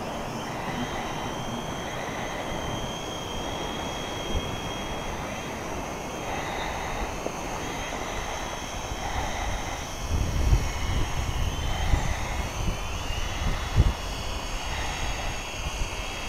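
XK X300 quadcopter hovering in position hold, its propellers giving a steady high whine. Wind rumbles on the microphone in gusts from about ten seconds in.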